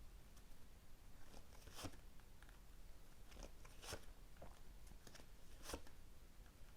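Faint, crisp snaps and rustles of tarot cards being shuffled and drawn, with three sharper snaps about two seconds apart.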